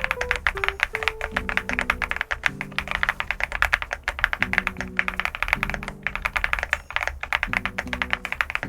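Rapid, continuous typing on an SPM LUCK68 custom mechanical keyboard, with many keystrokes a second. Soft background music with held low chords plays underneath.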